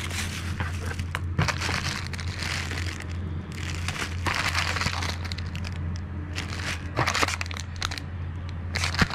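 Plastic packaging bags crinkling and rustling in irregular bursts as a dash cam and its wiring are handled and pulled from their box, over a steady low hum.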